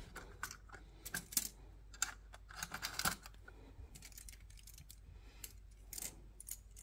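Light plastic clicks and rattles of LEGO Technic parts being handled, in scattered clusters of a few clicks each.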